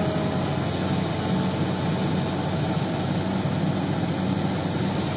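Diesel engine of a Hitachi excavator running steadily as it works its bucket over a dump truck: an even, low engine sound with no knocks or bangs.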